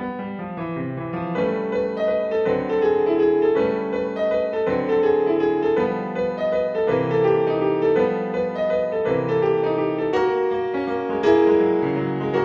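Solo piano piece playing: a melody over lower bass notes.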